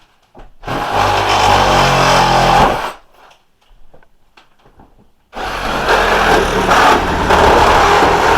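Handheld electric power tool running in two spells during wall demolition, cutting into the old wooden wall framing: one spell of about two and a half seconds, then a pause, then a second spell starting about five seconds in.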